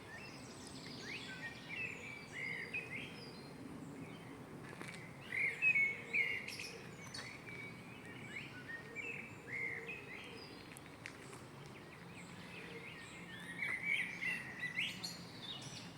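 Small songbirds chirping and twittering over steady low background noise. The chirping is loudest about five to six seconds in and again near the end.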